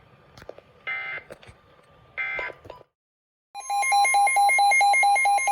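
Three short bursts of Emergency Alert System data tones, a buzzy warble about a second apart, marking the end of an alert message. After a brief silence a loud alert tone starts about three and a half seconds in: a steady high tone with a rapidly pulsing beep over it, about five beeps a second.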